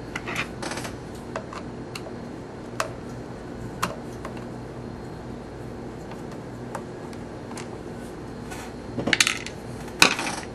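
Sparse small metallic clicks and clinks from a screwdriver being picked up from among other hand tools on a wooden desk and turned against the screw on the back of a small computer's metal case. A short cluster of louder clinks comes about nine to ten seconds in, as the screwdriver is set back down among the tools.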